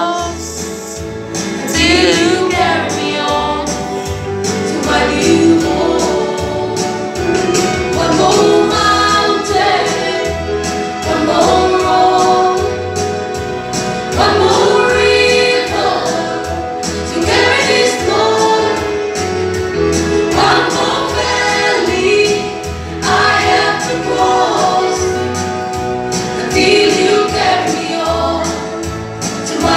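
Gospel song: several voices singing together over a steady bass beat with regular percussion ticks.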